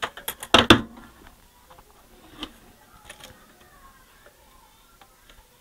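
A quick run of sharp clicks and knocks from handling the CD player's laser pickup mechanism, loudest under a second in, followed by a few lighter clicks.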